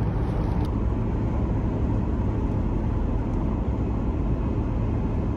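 A car driving along: steady road and engine noise heard from inside the cabin, without changes or sudden sounds.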